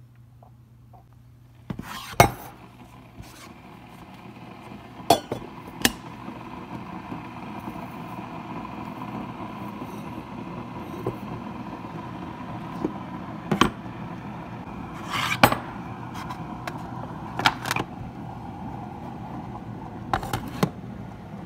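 A handful of sharp knocks and clinks, of a steel tumbler, its plastic lid and a ceramic mug being handled and set down at a coffee brewer, over a steady hum that starts about two seconds in.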